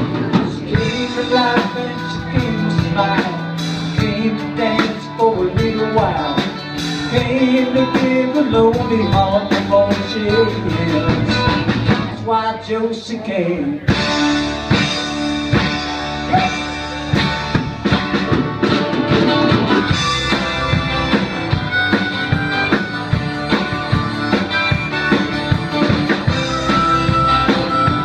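Live country-blues rock band playing: acoustic guitars strummed over electric bass and a drum kit, with a sung lead vocal. A harmonica comes in near the end.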